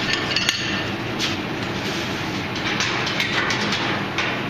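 Steel bar stock and hand tools clinking and clanking, with a brief metallic ring about half a second in, over a steady mechanical rumble.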